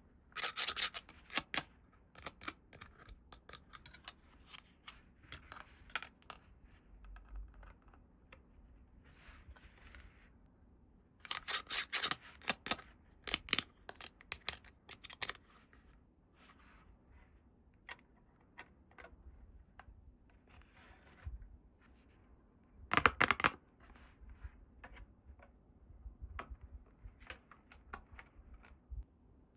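Toy packaging and small plastic toy parts being handled: scattered light clicks and taps, with three louder bursts of crinkling, tearing or cutting, near the start, about twelve seconds in and about twenty-three seconds in.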